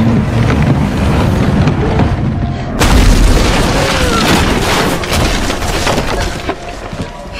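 A heavy crash about three seconds in, amid a din of banging over dramatic film music.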